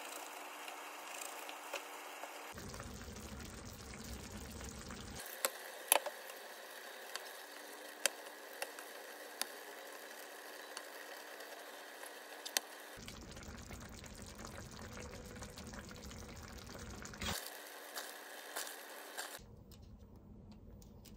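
Tomato sauce with eggs simmering and bubbling softly in a frying pan on a gas burner, a steady low sizzle. A few sharp clicks come through in the middle.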